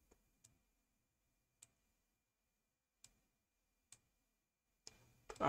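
Faint computer mouse clicks, about six of them at irregular intervals, with near silence in between.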